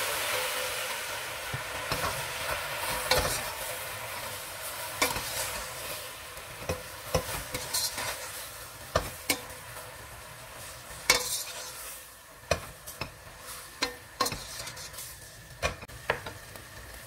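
Fresh spinach sautéing in olive oil in a stainless steel pot. The sizzle fades as the leaves wilt down, and a stirring utensil knocks against the pot with repeated sharp, irregular clicks.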